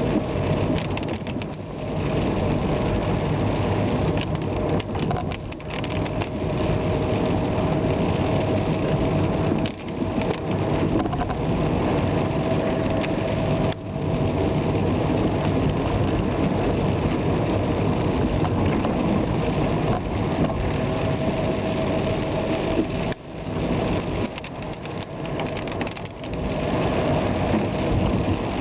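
A vehicle driving on wet roads in the rain: a steady engine hum mixed with tyre and rain noise. The level dips briefly a few times.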